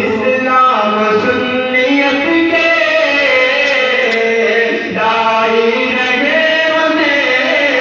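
A man singing an Urdu tarana (a devotional anthem) into a microphone, in long held, gliding melodic lines, with a short break for breath about five seconds in.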